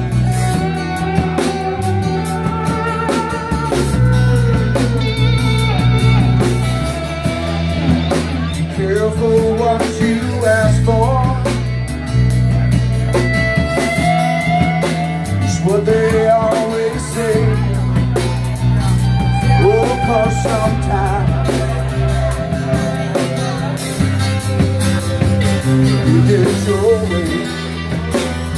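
A rock band playing a bluesy song: electric guitar, bass and drum kit, with singing. Bass notes change every second or two under a bending vocal or guitar line.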